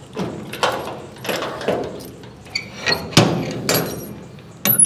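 A series of irregular knocks and clatters, with sharp metallic clinks near the end.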